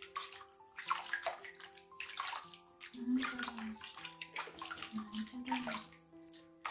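Water splashing and sloshing in a bathroom sink as hands scoop and pour water over a small wet puppy, in a series of separate splashes.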